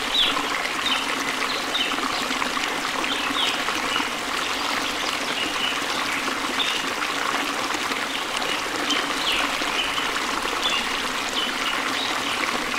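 Steady running water like a stream, with short, high, falling chirps about once a second over it.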